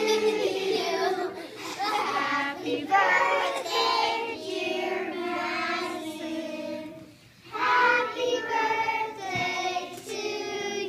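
A group of voices, children's among them, singing a birthday song together in phrases, with a brief pause between lines about seven seconds in.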